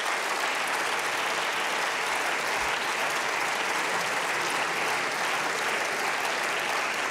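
Applause from many members of parliament: steady clapping from a large group of hands.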